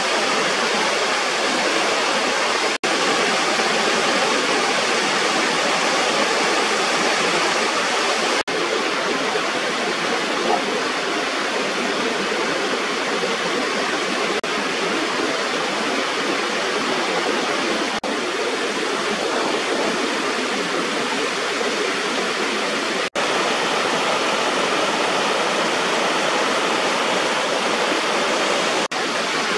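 Water pouring steadily over a small weir waterfall, a dense, even rush. The sound is cut off for an instant a few times.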